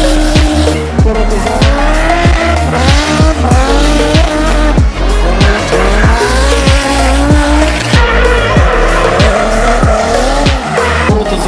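Drift cars sliding on concrete, their engines revving up and down and their tyres squealing, over music with a steady beat.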